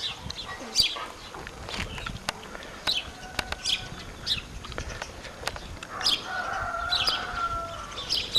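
Small birds chirping repeatedly, with a rooster crowing once about six seconds in, a drawn-out call of about a second and a half.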